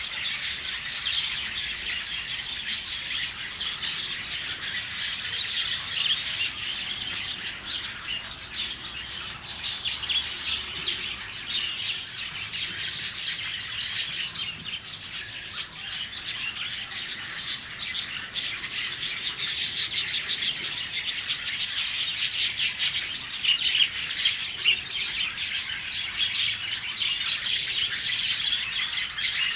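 A flock of budgerigars chattering and chirping continuously, many birds calling at once, growing busier in the second half.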